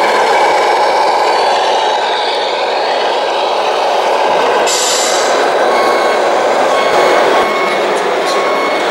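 Steady engine-like rumble from a radio-controlled scale truck's sound unit as the model drives, with a short hiss about five seconds in and faint short repeating beeps near the end.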